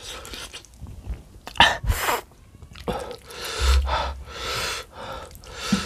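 Mouth sounds of a man eating a braised beef foot with his hands: wet chewing and sucking at the meat, broken by several loud, sharp breaths through the mouth and nose, the loudest about a second and a half in, typical of eating very hot chilli food.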